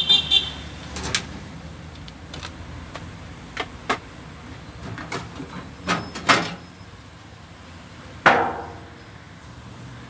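Knocks and metallic clatter as the sheet-metal outer cover of an ELBA microwave oven is worked loose and slid off its chassis. There is a scatter of sharp clicks, a pair of louder knocks about six seconds in, and the loudest knock, with a short ring, about eight seconds in.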